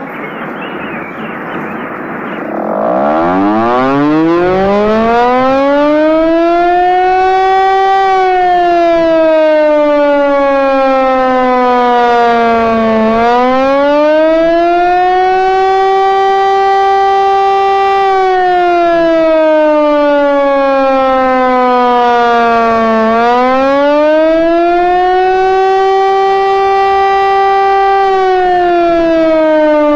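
Outdoor warning siren sounding a wail. After a couple of seconds of rushing hiss, its tone climbs from low up to full pitch, then slowly falls and rises again about every ten seconds.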